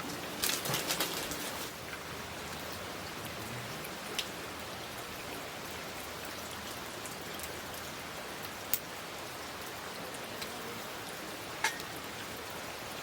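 Steady rain falling and pattering on surfaces, with a few sharp ticks standing out: a cluster in the first two seconds and single ones about four, nine and twelve seconds in.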